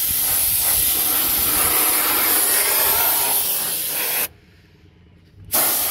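Ingco 400cc paint spray gun spraying a second coat of paint with a steady loud hiss. It stops suddenly about four seconds in as the trigger is released, then starts spraying again a second later.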